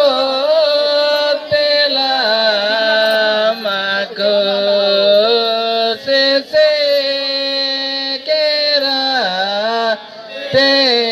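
Singing: a slow, chant-like melody in long held notes that slide between pitches, with short breaks for breath a few times.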